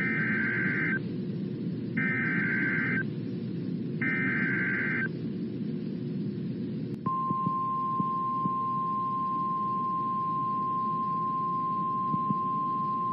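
Emergency Alert System SAME header: three one-second bursts of warbling digital data tones, a second apart, announcing a severe thunderstorm warning. About seven seconds in, the NOAA Weather Radio 1050 Hz warning alarm starts, a single steady tone. A steady low radio hiss runs underneath.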